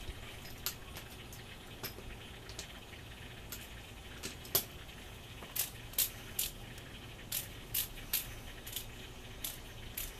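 Sharp metallic clicks and clinks, about fifteen at uneven intervals, closest together and loudest in the middle, as a socket wrench runs down and tightens the 15 mm belt tensioner bolt on the engine.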